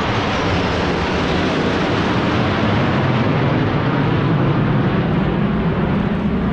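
Aircraft flying overhead: a loud, steady rushing engine noise with a faint falling pitch near the start.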